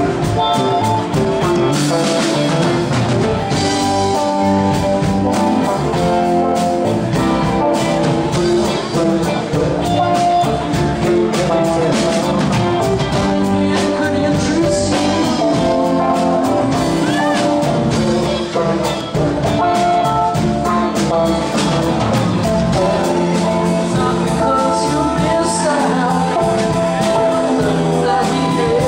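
Live rock band playing: electric guitars and bass guitar over a steady beat, with a man singing lead vocals.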